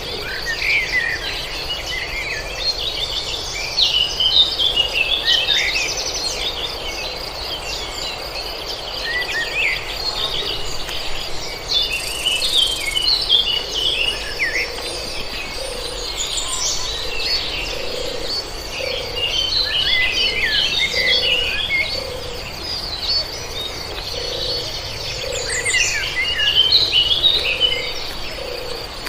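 Songbirds chirping in quick flurries over a steady, high insect trill, with a faint low call repeating about once a second in the second half.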